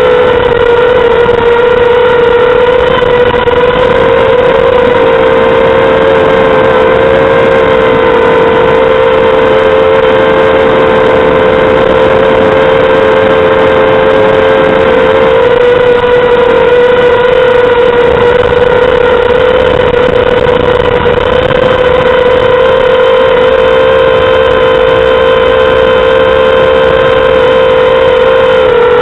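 Mini quadcopter's brushless motors and propellers buzzing steadily in flight: one loud hum with overtones, its pitch shifting slightly as the throttle changes.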